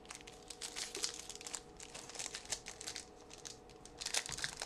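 Crinkling of a foil trading-card pack wrapper and cards being handled, in quick irregular rustles, with a faint steady hum underneath.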